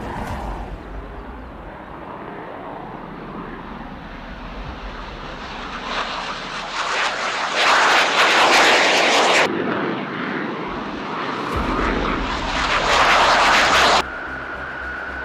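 Fighter jet engine noise: a steady rush that grows much louder twice, from about seven and a half to nine and a half seconds in and again from about twelve to fourteen seconds in, each loud stretch cutting off abruptly.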